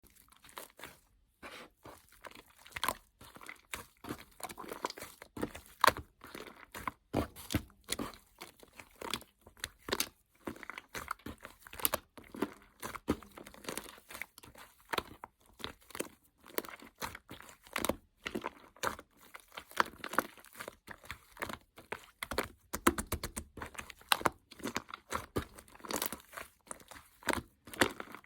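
Slime being squished and stretched by hand, giving a dense, irregular run of crackling pops and clicks.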